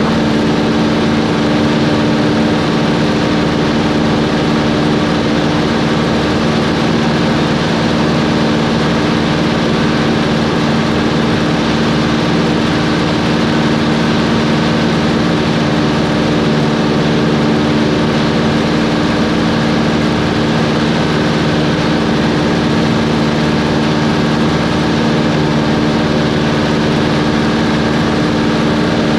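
Cessna 140's four-cylinder air-cooled engine and propeller droning in the cabin at a steady, unchanging power setting, with no change in pitch.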